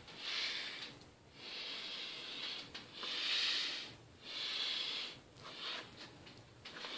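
Heavy, airy breathing close to the microphone, in and out about every second or so in a steady run, with a few faint clicks from handling.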